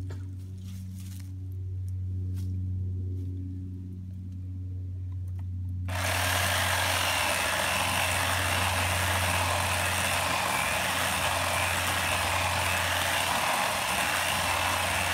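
Poulan electric chainsaw cutting into a dead oak trunk: after a low hum, the saw comes in suddenly about six seconds in and runs loud and steady to the end.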